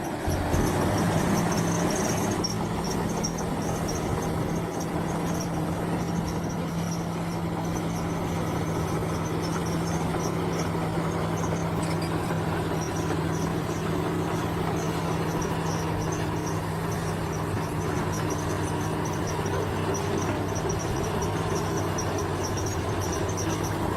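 Heavy earthmoving machine's engine running steadily, with insects chirping in a fast pulsing trill over it.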